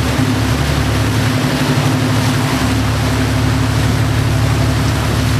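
Boat engine running steadily at trolling speed, with a steady rush of wind and water noise over it.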